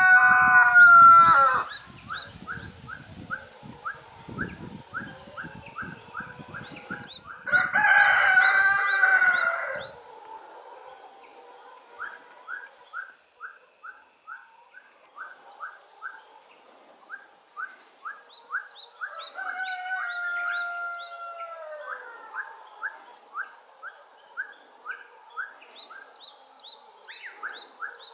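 A person whistling short rising notes, about two a second, to call free-range chickens into their coop. Roosters crow three times: one under way at the start, a loud one about eight seconds in and a weaker one near the middle. Faint small-bird chirps sound above.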